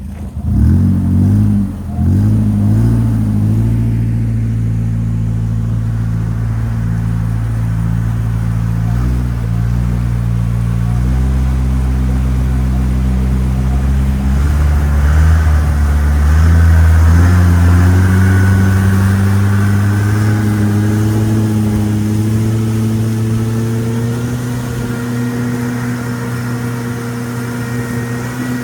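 Boat engine running loudly, revving briefly at the start, then holding steady before its pitch gradually rises as the boat speeds up in the second half.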